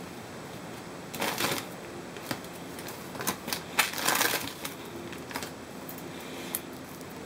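Clear cellophane bag crinkling and foil-wrapped chocolate eggs rustling as hands rummage through them. The crackling comes in two bursts, about a second in and again from about three to four and a half seconds in, then a few lighter clicks and rustles.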